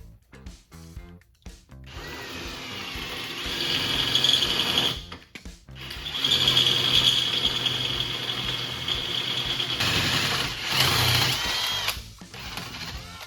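Cordless drill with a 7/16 in. cobalt bit boring out a bolt hole, lubricated with WD-40. It runs in two steady whining spells with a short stop between them, the pitch bending near the end of the second spell before it stops. Background music plays underneath.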